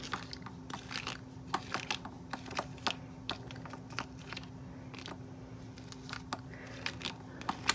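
Irregular light clicks and rustles of fingers handling a plastic fashion doll's head and hair, working a fitted piece off the hair with a little force, over a faint steady hum.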